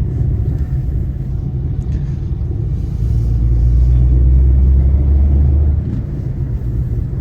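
A car on the move: a steady low engine and road rumble that swells louder for about three seconds in the middle.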